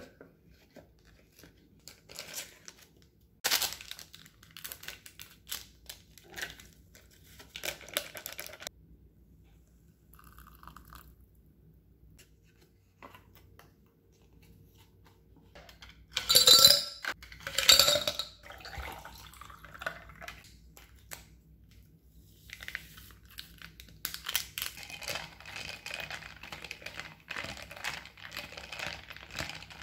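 Paper and plastic packaging of a Shin Ramyun cup noodle being peeled back and crinkled by hand, with a couple of sharper, louder handling sounds midway. Near the end comes a dense run of small clinks as ice knocks about in a tall glass of iced drink.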